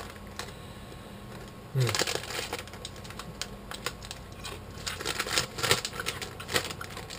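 Crunching and chewing of thin, crispy crackers close to the microphone, with a foil snack bag crinkling in the hands. About two seconds in a brief hum of voice comes, then a dense run of sharp crackly crunches follows.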